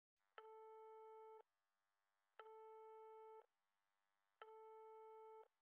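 Telephone disconnect tone after a call is hung up: three steady beeps, each about a second long with a second of silence between.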